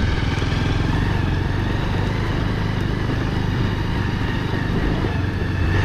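Motorcycle engine running steadily as the bike is ridden along, with no change in revs.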